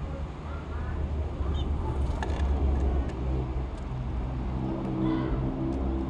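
Car engine running nearby: a steady low rumble, with its hum growing clearer about halfway through.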